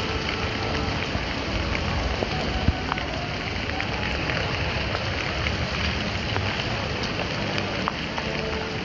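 Heavy downpour pelting a flooded paved path: a dense, steady hiss of rain on standing water. A single sharp knock sounds about two and a half seconds in.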